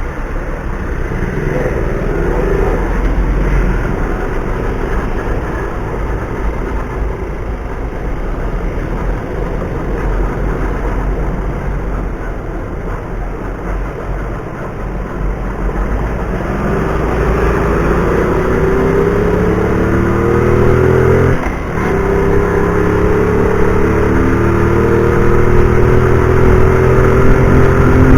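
A car's engine and road noise heard from inside the cabin through a dashcam's microphone. About two-thirds of the way in, the engine note climbs in pitch as the car accelerates; it drops briefly, then climbs again.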